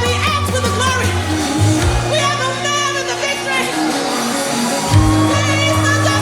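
Music with singing over sustained bass notes, the bass changing note twice.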